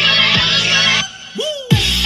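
Loud electronic intro music, dubstep-style, with a heavy beat. About a second in it cuts out for a downward pitch-drop sweep, then comes back in hard near the end.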